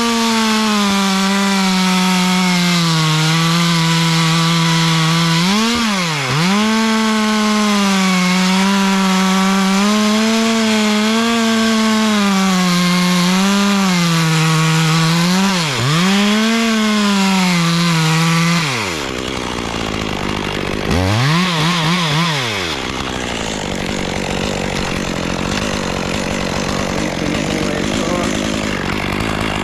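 Small chainsaw running at high revs, cutting through the top of a dead oak, its pitch dipping briefly now and then. After about two-thirds of the time the engine drops off and revs back up twice, and the sound turns rougher.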